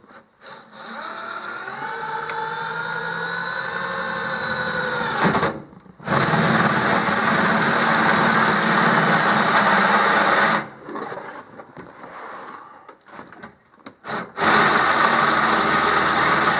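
Power drill running a hole saw to cut a hole in a truck's dashboard: first a run whose whine slowly rises in pitch for about four seconds, then a loud stretch of cutting about four and a half seconds long, and after a pause a second, shorter burst near the end.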